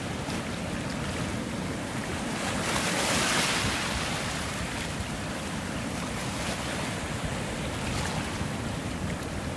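Sea waves breaking, with one wave swelling louder about three seconds in, and wind rumbling on the microphone.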